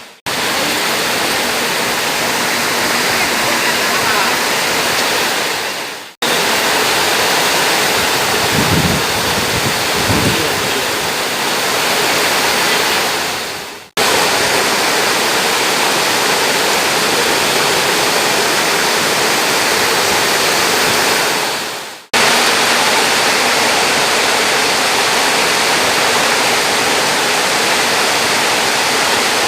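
Heavy rain pouring down as a loud, dense, steady hiss. The sound fades out and restarts abruptly three times.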